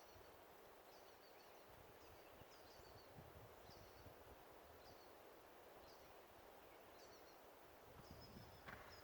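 Near-silent outdoor background with a small bird chirping faintly, one short high call about every second.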